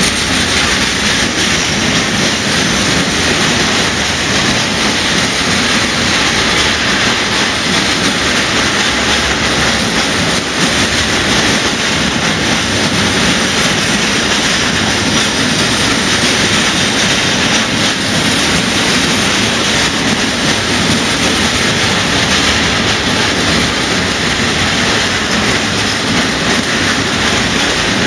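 Freight train of covered hopper wagons passing close by: a loud, steady running noise of steel wheels on rail, unbroken as wagon after wagon goes past.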